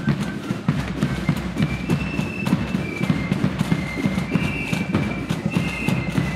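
Marching blood-and-thunder flute band playing: a high flute melody of short held notes over rapid, heavy snare drumming and bass drum beats.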